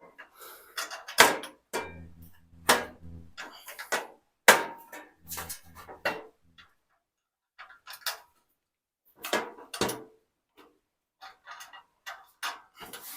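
Irregular knocks and clanks of parts of a Blackstone griddle being handled and fitted during assembly, as pieces that won't line up are worked into place. Two short low hums sound among the knocks early on.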